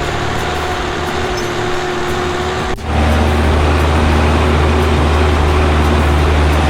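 The Cummins diesel engine of a 1987 Timberjack 230 forwarder running steadily. It breaks off briefly about three seconds in, then comes back louder with a heavier low rumble.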